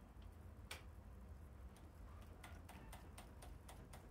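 Near silence broken by faint, sharp clicks: a single one under a second in, then a quick run of several, about four a second, near the end.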